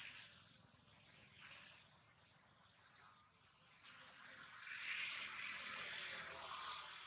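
Steady high-pitched drone of an insect chorus, with no let-up.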